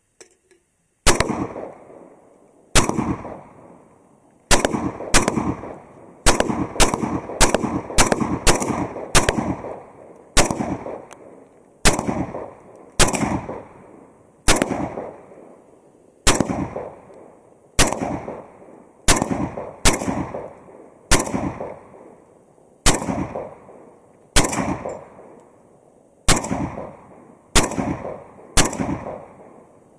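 Saiga AK-pattern semi-automatic rifle fired shot by shot, about two dozen rounds. The shots come mostly a second or more apart, with a quicker run of shots a little over half a second apart in the first third. Each shot echoes and dies away over about a second.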